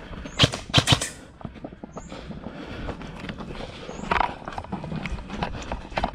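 Footsteps and gear knocks from an airsoft player on the move, with three sharp, loud clicks in the first second and another about four seconds in.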